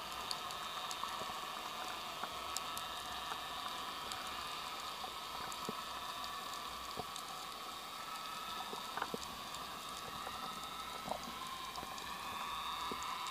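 Underwater ambience heard through a diving camera's housing: a steady hiss with scattered faint clicks and crackles.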